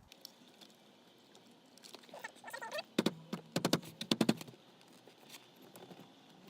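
Clicks and knocks of hands and tools working a steering wheel off a car's steering column, coming in a quick cluster about three seconds in. A short squeak comes just before them.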